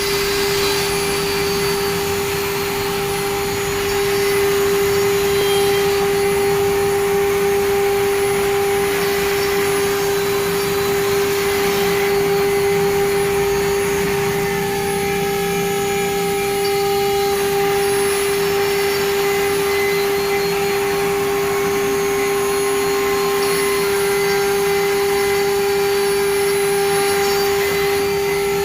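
CNC router spindle running and cutting: a steady, unchanging whine over a continuous noisy rush from the bit working the material.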